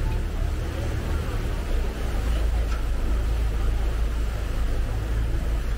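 Chao Phraya River passenger boat's engine running steadily: a constant low drone under a wash of steady noise.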